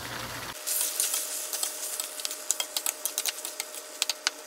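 Cubes of bottle gourd with shrimp and chorizo sizzling in a wok while being stirred with a metal spatula, with many quick clicks and scrapes of the utensil against the pan.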